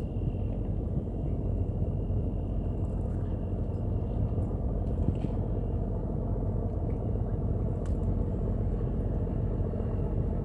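Steady low rumble, with a faint thin high tone above it.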